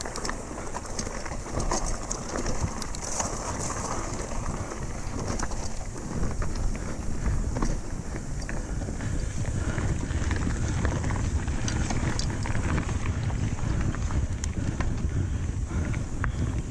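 Mountain bike rolling over a dirt and gravel trail: tyre rumble on the ground with frequent small clicks and rattles from the bike and loose stones, and wind noise on the microphone. The low rumble grows heavier about halfway through.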